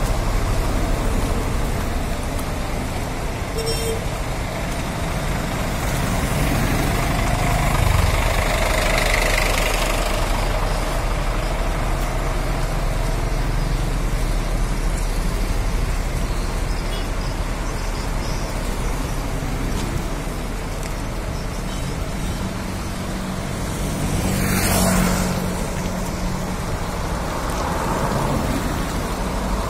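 Road traffic passing: cars and motorcycles go by one after another over a steady low rumble. One vehicle passes close with a quick whoosh about 25 seconds in.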